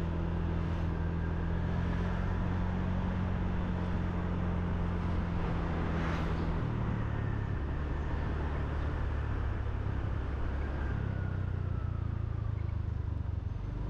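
Motorbike engine running steadily while riding along a street, with road and wind noise. Its pitch drops slightly about halfway through and rises again a few seconds later as the speed changes.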